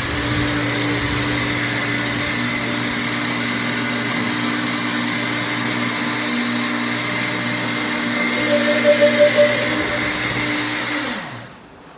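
Britânia countertop blender running steadily while puréeing cooked beans, with a short wavering surge about nine seconds in; near the end the motor is switched off and winds down with a falling whine.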